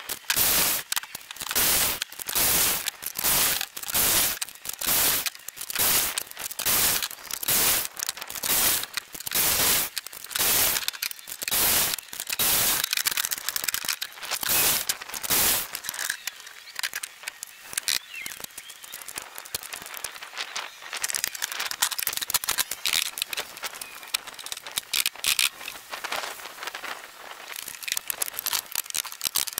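Circular saw making a rapid run of short cuts through lumber, about one and a half a second, for roughly the first half. After that comes a denser, irregular clatter.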